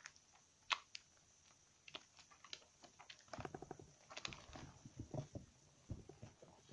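Slightly soaked soap bars squeezed and rubbed between wet hands in a bowl of lather. Soft squelches and foamy crackles come in irregular bursts, with a sharp click just under a second in.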